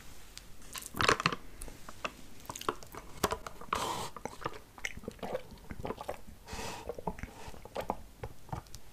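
Close-miked mouth sounds: wet chewing with sharp clicks, then milk tea with tapioca pearls slurped up a wide straw in two longer sips.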